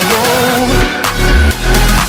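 Loud electronic dance music: sustained synth lines over a deep bass drum that sweeps down in pitch on a steady beat.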